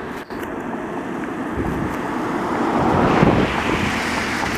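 A car driving past close by: the tyre and road noise swells to a peak about three seconds in, then fades away.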